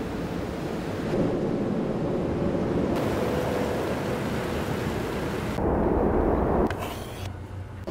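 Steady rushing ambience like wind and surf, with a faint held low drone. It swells about a second in, surges louder for about a second near the end, then drops away abruptly.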